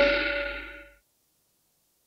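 A single sudden metallic clang that rings on in a few clear tones and fades away within about a second.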